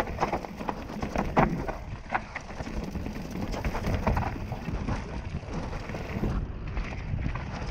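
Mountain bike rattling down a rough dirt trail over exposed roots and rocks: a steady rumble of tyres and wind on the rider-mounted camera's microphone, broken by frequent sharp knocks and clatters from the bike, the loudest about a second and a half in.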